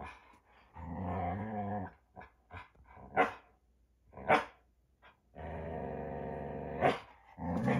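Standard poodle play-growling: two long growls with two sharp barks between them, and another growl starting near the end.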